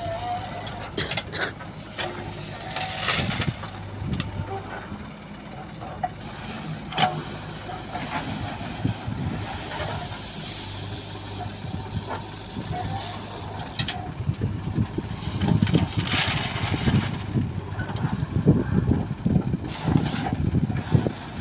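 JCB 3DX backhoe loader's diesel engine running steadily while its backhoe bucket digs into a pile of stone chips and lifts them, the gravel clattering and rattling against the steel bucket. The knocks and scrapes come more densely in the second half.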